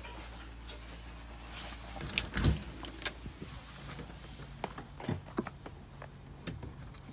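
A house door being opened and swung shut, with a loud thump about two and a half seconds in, then scattered footsteps on outdoor steps and snow.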